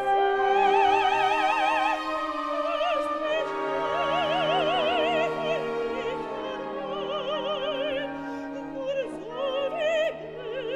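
Dramatic soprano singing long held notes with a wide vibrato over a sustained orchestra, breaking into shorter phrases near the end.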